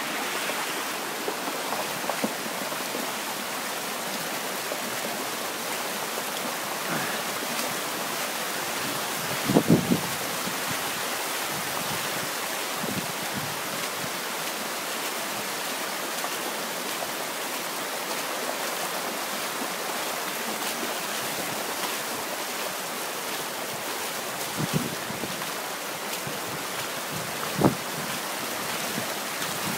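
Steady rain falling, an even hiss. A few louder dull knocks stand out, the strongest about ten seconds in and two more near the end.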